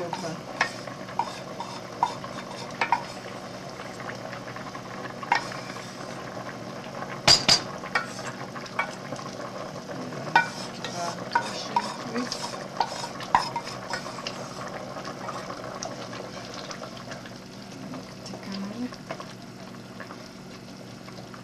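A spoon scraping and clinking in a small enamel saucepan as browned roux is scraped out into a pot of cabbage in tomato sauce and stirred in, with scattered sharp clinks, the loudest two about seven seconds in. A steady hiss from the pot, just at the boil, runs underneath.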